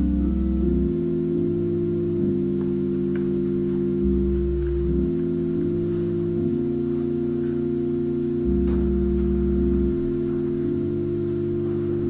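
Church organ playing slow, sustained chords that change every second or two over a held upper note, with deep pedal bass notes sounding three times.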